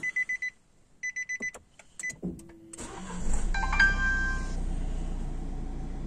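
A car's warning chime beeps in quick runs, then a click. About three seconds in, the 2018 Nissan X-Trail T32's engine cranks and starts with a short whine, then settles into a steady idle.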